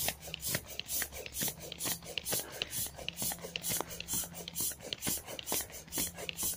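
Air pump running, forcing air through a hose into a vinyl inflatable ride-on toy, heard as a hiss that pulses about two or three times a second over a faint low hum.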